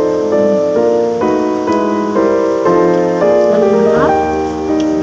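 Background piano music: a slow melody over held chords, the notes changing about every half second.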